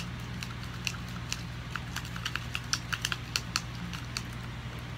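Plastic spoon clicking against a small plastic container while stirring sticky glue-and-laundry-soap slime: a run of quick, irregular clicks, thickest in the middle.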